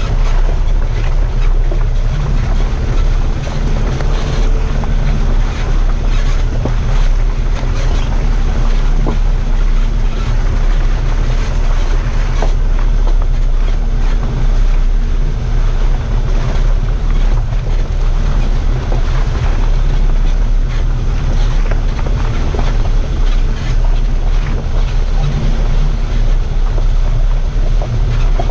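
Heavy wind buffeting and a low rumble from a camera mounted on the outside of a 4x4 driving along a muddy lane, with scattered small knocks throughout.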